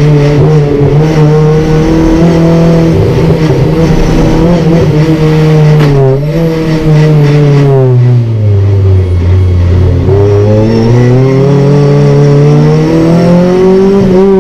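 Renault Clio Cup race car's four-cylinder engine heard from inside the stripped cabin, held at high revs, then the revs fall away for a few seconds around the middle as the car slows, and climb steadily again as it accelerates.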